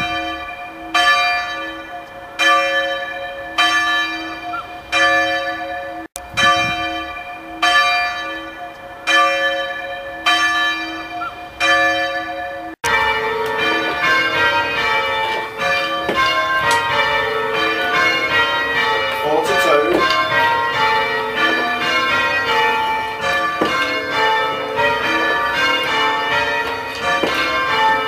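Church tower bells. For about the first thirteen seconds one bell strikes at an even pace, about once every 1.3 seconds, each stroke ringing on as it dies away. Then several bells are rung full-circle by rope in quick succession, the strokes overlapping in the manner of change ringing.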